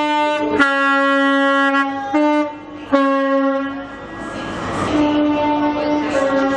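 Train's two-tone horn sounding high-low three times: a short higher note dropping to a longer lower one, each pair following the last after a brief break.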